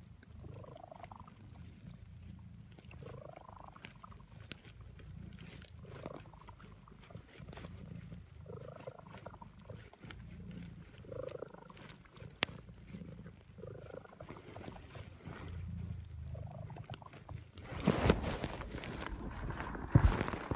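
Calico cat purring while dozing: a steady low rumble that swells with each breath, every second or two. Near the end, loud rustling and a couple of knocks as the recording phone is handled.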